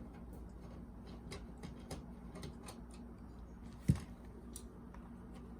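Light scattered clicks and ticks of a screwdriver and small parts being worked on a cassette deck's chassis, with one louder knock about four seconds in, over a steady low hum.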